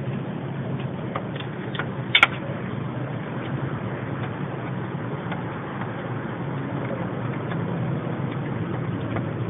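Steady low background hum with a few light clicks and one sharper click about two seconds in, as tools and hands work at the slackened accessory belt and its tensioner.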